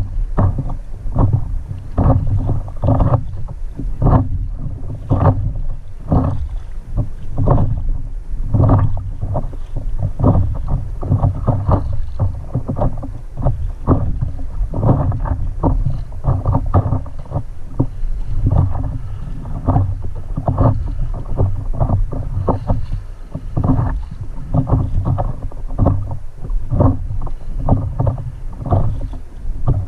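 Water splashing and slapping against a stand-up paddleboard as it is paddled through light chop, in short irregular splashes about one or two a second, over a low wind rumble on the microphone.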